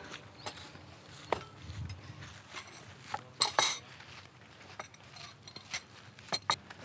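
Pans, dishes and glasses clinking and knocking as they are set down on a table: a scattering of sharp clinks, with the loudest pair about halfway through.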